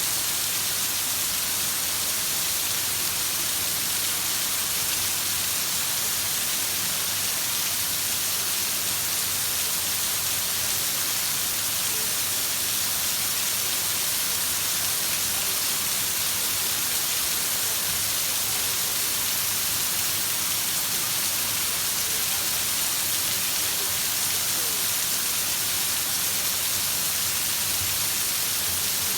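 Heavy rain falling steadily, an even hiss of rain on surfaces that does not change.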